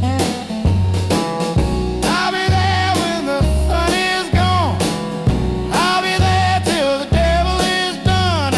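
Blues song playing: a repeating low bass riff with drums, and above it a melody of long held notes that bend up and down.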